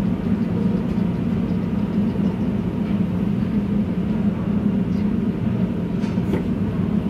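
A machine running with a steady, unchanging low hum, with a few faint ticks over it.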